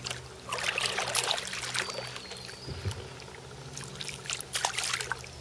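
Hooked Australian bass splashing and thrashing at the water's surface beside a kayak, in irregular spells of splashing with quieter water movement between, the heaviest splashes about half a second in and again near the end.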